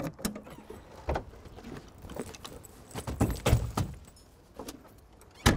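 Bags being loaded into the open boot of a 1984 Opel Senator: rustling with irregular clinks and knocks, a cluster of heavier thuds about three seconds in, and a sharp knock near the end.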